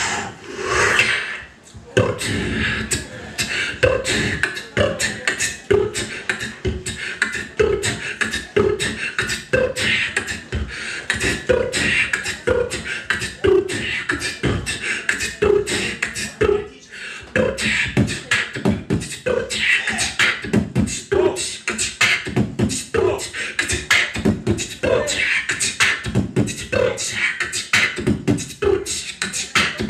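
A beatboxer making drum sounds with his mouth: a fast, steady rhythm of sharp clicks and hits, with short hummed notes about once a second. There is a brief break about halfway through.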